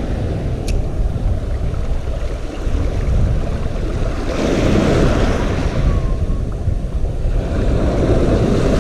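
Sea waves washing in with wind buffeting the microphone; the surge swells louder about four seconds in and again near the end.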